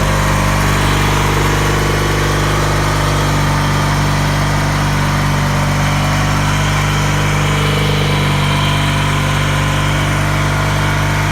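Briggs & Stratton engine of a 1985 Roper lawn tractor running steadily at an even speed, muffled. The owner suspects it is not reaching its 3,200 rpm governed speed and means to check the governor spring.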